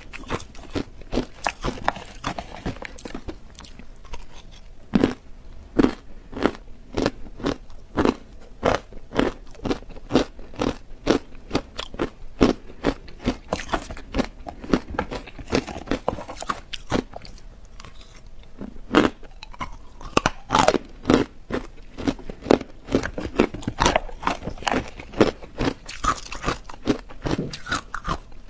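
Close-miked crunching and chewing of frozen matcha ice, bitten off a spoon mouthful by mouthful: an irregular run of crisp crunches, about two or three a second.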